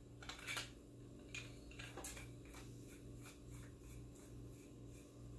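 Faint handling sounds of a two-piece paintball barrel being screwed together by hand: a few soft ticks and scrapes of the metal parts and threads, the clearest about half a second in. A steady low hum runs underneath.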